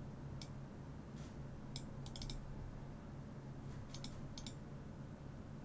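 Computer mouse clicking faintly and irregularly, a dozen or so sharp clicks, some in quick pairs, over a low steady hum.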